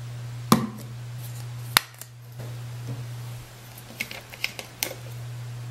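A small plastic cup being set down on a bathroom countertop: two sharp clicks and knocks early on, then a few lighter clicks about four to five seconds in, over a steady low hum.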